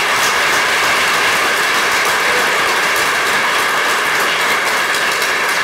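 A roomful of people applauding, a steady dense clapping with no voices over it.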